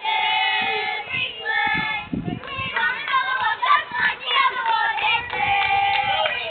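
Children's voices singing together, with long held high notes broken by shorter shouted phrases.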